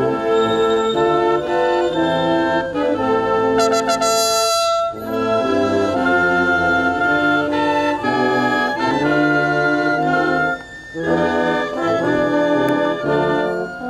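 Brass band playing sustained chords in slow phrases, with short breaks about five and eleven seconds in.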